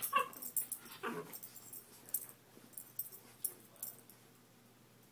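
West Highland white terrier puppy giving two short vocal sounds that drop in pitch, one at the start and one about a second in, as it rolls and rubs on a duvet; bedding rustles in short bursts until about four seconds in.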